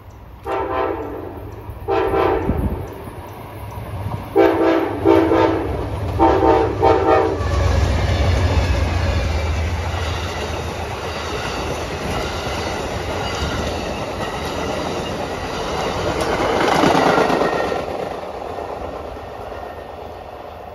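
Passenger train led by two Amtrak P42DC diesel locomotives sounding its horn in six blasts, paired, over the first seven seconds or so. The locomotives then pass with a deep engine rumble, followed by the passenger cars rolling by with a clickety-clack of wheels on the rails, swelling briefly near the end and then fading as the train moves away.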